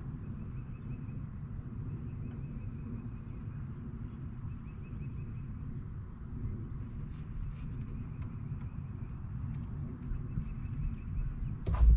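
Fishing from a kayak: faint repeated ticking of a fishing reel as line is wound in, over a steady low rumble, with one sharp knock on the kayak about a second before the end.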